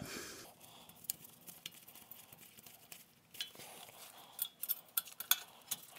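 Faint, scattered metallic clicks and ticks from a small quarter-inch wrench tightening the ABS wheel-speed sensor's bolt, with a quick cluster of sharper clicks near the end.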